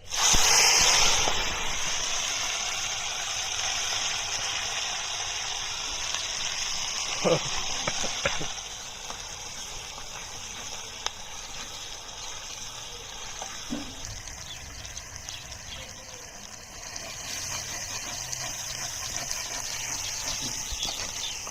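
Ingredients tipped into hot oil in a pan sizzle up suddenly and loudly, then settle into a steady frying sizzle.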